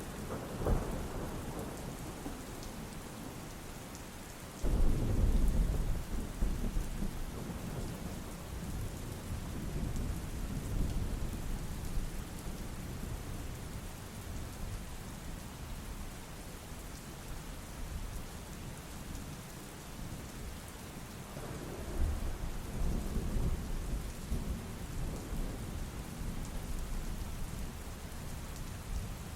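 Steady rain hissing, with thunder: a sudden loud rumble about five seconds in that rolls on for several seconds, a second rumble about 22 seconds in, and a smaller one near the start.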